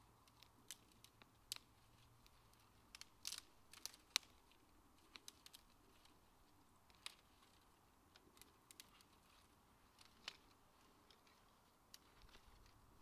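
Wood campfire crackling: irregular sharp pops and snaps over a low background, with a cluster of louder pops about three to four seconds in.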